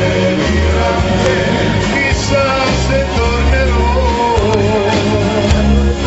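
Male singer singing into a microphone over a live band, with a sung line that wavers in vibrato over a steady bass line.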